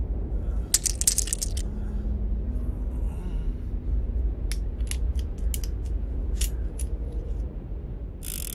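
Revolver being handled: sharp metallic clicks and clinks of its swung-out cylinder mechanism, a quick cluster about a second in and then scattered single clicks, with a short rasp near the end, over a steady low rumble.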